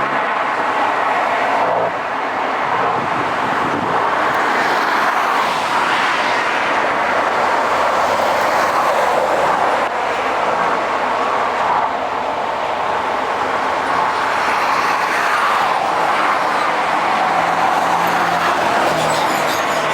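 Jet airliner engines roaring at takeoff power, a loud steady rushing roar with slight swells.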